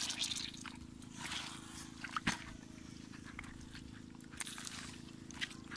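Footsteps in sandals on wet sand and shallow seawater: scattered soft splashes and small clicks over a steady low hum.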